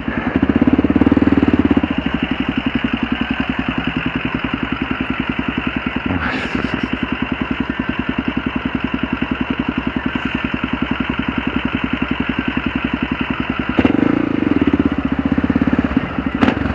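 Single-cylinder engine of a 2003 Kawasaki KLR650 motorcycle running with an even, rapid pulsing beat. It swells louder briefly about a second in and again near the end.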